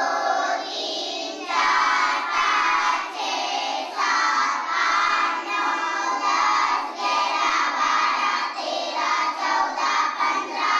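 A group of children chanting together in a sing-song, in short phrases with brief breaks, as in a classroom recitation.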